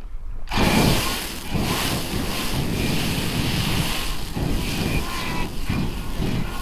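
PulseFire rifle-mounted flamethrower firing a continuous jet of burning fuel: a loud, steady rushing of flame that cuts in abruptly about half a second in.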